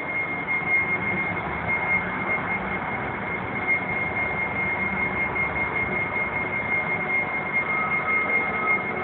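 Steady warehouse machinery noise: an even mechanical rush with a thin, steady high whine over it, joined near the end by a second, lower steady tone.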